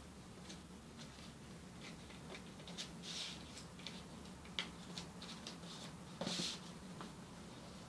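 A sheet of origami paper being folded by hand: soft irregular crinkles and taps as creases are pressed flat, with two louder paper rustles, about three seconds in and about six seconds in.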